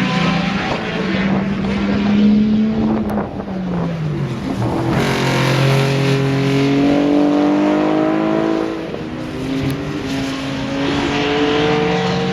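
Racing car engines at high revs as cars pass at speed, several engines overlapping. A little over three seconds in, one engine's pitch drops as it goes by, then engines climb in pitch again through the gears.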